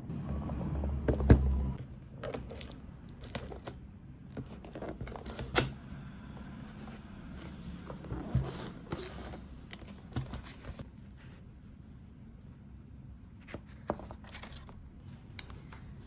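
A cardboard presentation box being handled and opened: a heavy knock about a second in as it is set down, then scattered sharp clicks and knocks as the lid and its fastenings are worked, and paper rustling near the end.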